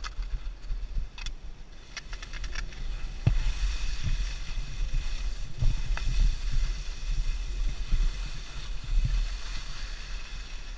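Skis scraping and hissing over hard-packed snow during a descent, with wind rumbling on the microphone. A run of sharp clicks comes in the first few seconds, before the hiss of the skis grows louder.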